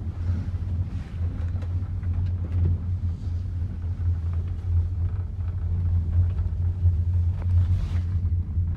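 Steady low rumble during an open chairlift ride: wind and lift noise on the phone's microphone, with a few faint ticks.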